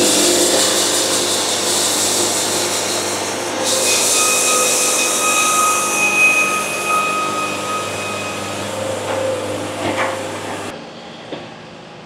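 Wood-Mizer band sawmill's blade cutting along a stack of boards on edge to edge them, a loud steady cut with a high ringing note over it for several seconds midway. About eleven seconds in the cut ends and the noise drops away.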